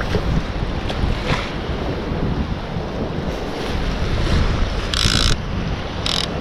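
Wind buffeting the microphone, a steady low rumble over the wash of waves against the pier. There is a short burst of hiss about five seconds in and another right at the end.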